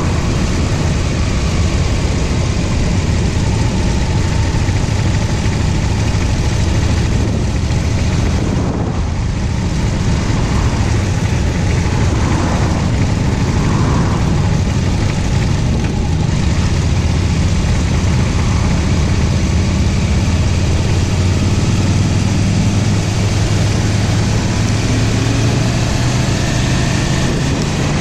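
Motorcycle engine running steadily while riding, heard from on the bike with wind and road noise rushing over the microphone; near the end the engine note rises as the bike speeds up.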